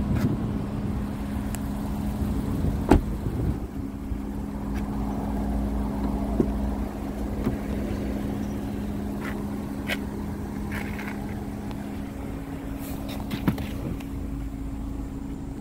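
A car's rear door shut with a thump about three seconds in, over a steady low hum and rumble, with a few lighter knocks and clicks later on.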